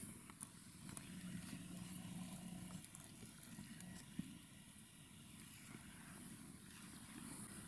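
Quiet outdoor ambience at a still pond: a low, even rumble, with a faint steady hum for about two seconds near the start and a few faint ticks.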